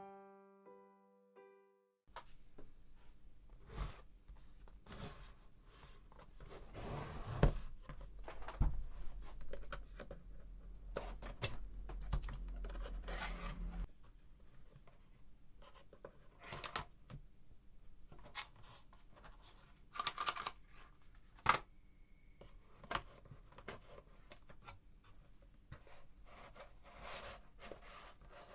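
Packaging of a boxed Bluetooth speaker being handled and opened: irregular rustling, scratching and tearing of plastic and cardboard, with scattered sharp clicks and knocks.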